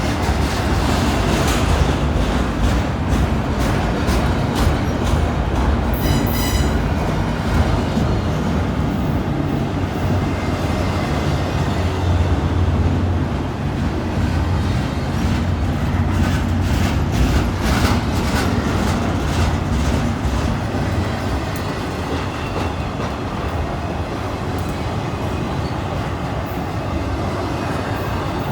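Freight train rolling past, its wheels clacking steadily over the rail joints, with a brief high-pitched wheel squeal about six seconds in.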